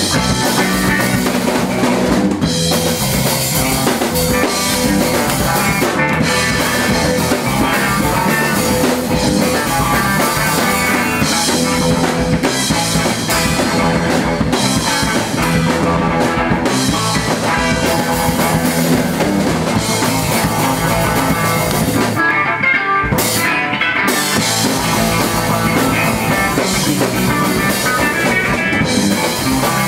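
Live punk rock band playing a song: drum kit with bass drum and rimshots, electric guitar and bass, with a brief break about three-quarters of the way through.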